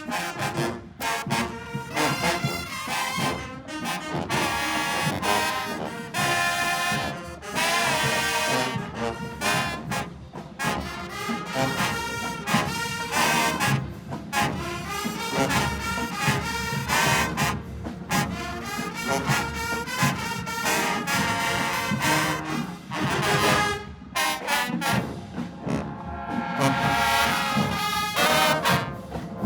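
Marching band playing a tune: a brass section of trombones and trumpets over a steady beat of drums.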